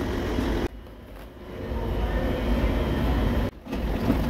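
Steady low rumble with a hiss above it. It drops away suddenly about two-thirds of a second in and builds back up slowly, then cuts out again briefly near the end.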